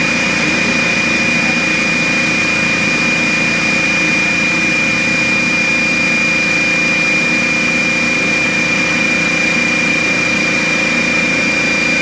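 DeWalt D55168 15-gallon, 1.6 hp air compressor running: a loud, even motor-and-pump drone with a steady high whine over it.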